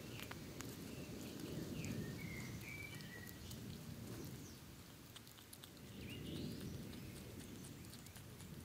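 European hedgehog chewing and smacking noisily, a dense run of small wet clicks over a low, uneven rumble. A few faint bird chirps sound in the background.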